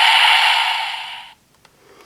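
Electronic finisher sound effect from the DX Fever Slot Raise Buckle toy, a steady bright hiss fading out about a second and a half in, followed by a few faint clicks.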